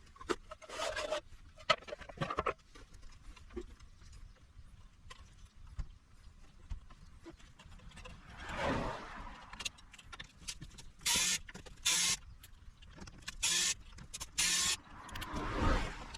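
Bench handling of an inverter during repair: scattered clicks and knocks of parts and tools, two swelling scraping or rustling noises, and four short bursts of hissing noise close together in the second half.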